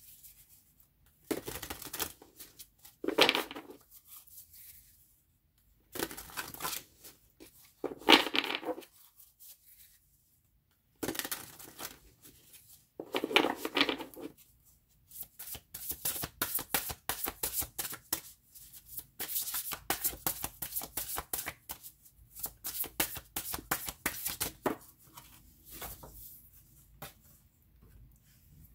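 A deck of oracle cards being shuffled by hand: several short spells of shuffling in the first half, then a long run of quick card clicking that fades out near the end.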